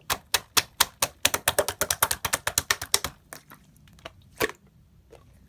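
A quick run of sharp tapping clicks, about seven a second, for about three seconds, then a few scattered clicks, with one louder click near the end.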